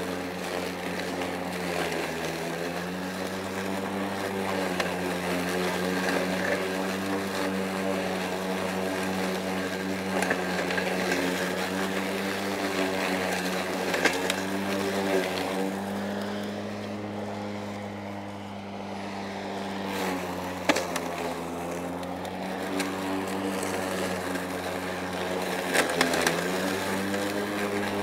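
Kobalt 40V Max brushless cordless lawn mower cutting grass, its electric motor and blade giving a steady hum that dips slightly in pitch now and then as the blade takes load. The self-propel drive is off, so only the blade motor runs. A few sharp clicks come through, and the sound sags for a few seconds about two-thirds of the way in.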